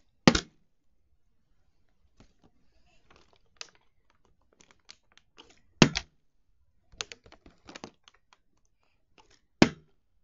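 Plastic water bottle being handled and flipped: scattered light clicks and crackles of the plastic, with a few sharp knocks as it hits the board, the loudest just after the start, about six seconds in and near the end.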